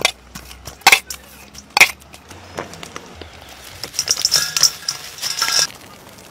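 Three sharp clinks in the first two seconds, then a dense, dry crackling rattle from about four seconds in as crispy fried tiny frogs are tipped from a bamboo basket into a steel mixing bowl.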